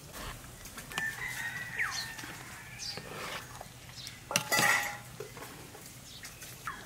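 A metal ladle clinking and scraping against an aluminium pot as it scoops thick moringa-leaf hotchpotch. There are scattered light clinks, with the loudest clatter about four and a half seconds in.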